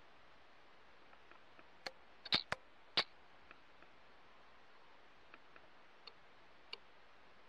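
Sharp clicks over a faint steady hiss: four louder ones close together about two to three seconds in, then a few fainter single clicks spread out after.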